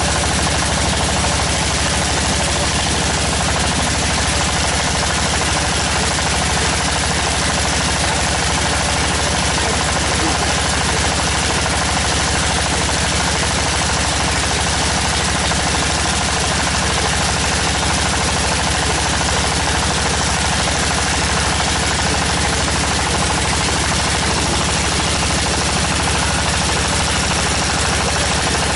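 Tractor-mounted water well drilling rig at work: its engine and drilling running loud and steady, with a fast, unbroken rattle of rapid impacts.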